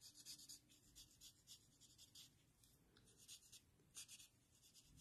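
Faint scratchy strokes of a Stampin' Blends alcohol marker tip colouring in a stamped flower on paper, in quick runs of short strokes with a brief pause about halfway through.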